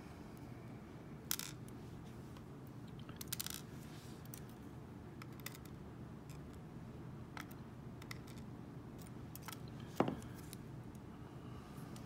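Scattered small metallic clicks and taps as a padlock's pins and springs are handled with steel tweezers and set into a plastic pinning tray, with a sharper single click about ten seconds in.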